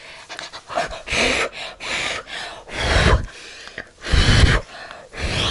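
Heavy breathing close to the microphone: loud, noisy breaths about once a second, the breathing of someone out of breath after running about.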